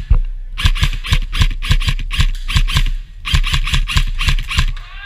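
Footsteps crunching over rough ground at a brisk walk or jog, about three to four steps a second, each with a low thud, pausing briefly about three seconds in.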